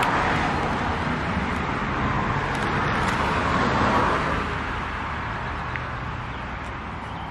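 Road traffic noise: a passing vehicle's rush that swells to about halfway through and then fades away.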